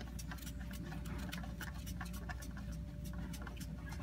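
Engine oil dripping from a loosened oil filter into a drain bucket: a quick, irregular patter of small ticks, several a second, over a steady low hum.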